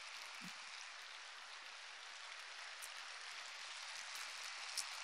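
Large audience applauding in an auditorium, a steady, fairly faint patter of many hands clapping, with one sharper clap near the end.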